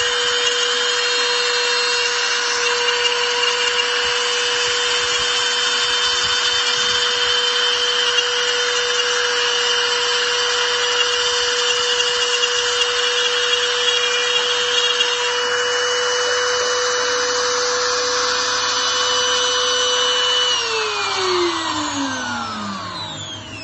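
CNC spindle running at a steady high whine while its cutter mills aluminium, with harsh cutting noise over the tone. About twenty seconds in, the spindle winds down and its whine falls steadily in pitch.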